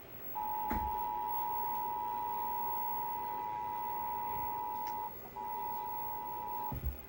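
Emergency Alert System attention signal: the steady two-tone alert sound of 853 Hz and 960 Hz held together, which announces the required monthly test. It sounds for about six seconds, drops out for a moment about five seconds in, then resumes and stops.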